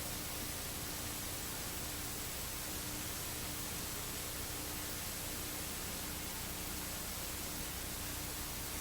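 Steady hiss of static with a faint constant hum, unchanging throughout: the background noise of the recording with nobody speaking.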